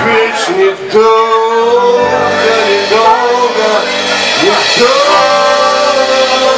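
Live blues-rock band playing loudly: electric guitars over a drum kit, with long held lead notes that slide up in pitch a couple of times.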